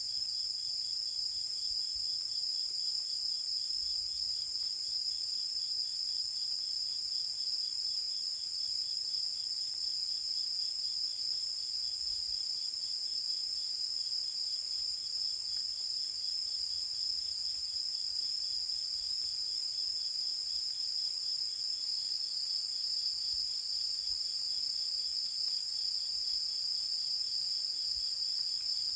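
A chorus of crickets and other night insects chirring steadily, in continuous high-pitched trills, with a fainter rapid pulsing trill beneath.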